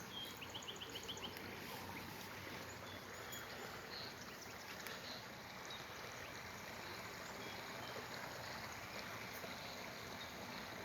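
Steady outdoor background rush with no distinct events. About half a second in, a bird gives a brief, rapid series of high chirps.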